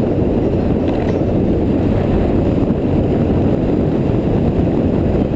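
BMW R1100GS boxer-twin motorcycle riding at a steady cruising speed: steady wind noise on the mounted microphone, with the engine's low drone underneath.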